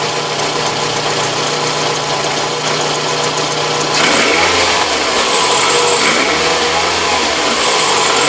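Toyota RAV4 engine idling, then revved several times from about four seconds in, with a high whistle that comes in with the revs. The owner takes it most likely for a worn alternator bearing, possibly the water pump.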